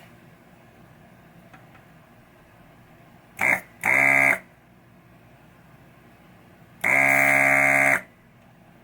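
Electric vacuum desoldering gun's pump buzzing in three short runs: two brief ones a little over three seconds in, then a one-second run about seven seconds in. This is the pump sucking old solder out of a through-hole on the power supply board to clear it.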